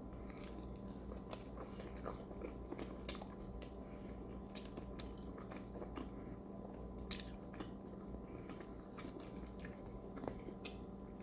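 A person chewing and biting a fast-food bacon burger close to the microphone: soft, wet mouth sounds with scattered small crunches and clicks.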